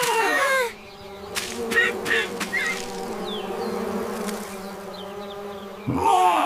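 Cartoon bee buzzing sound effect: a steady, even buzz, with a few short bright strokes over it about one and a half to two and a half seconds in. A short gliding pitched sound starts and ends the buzz.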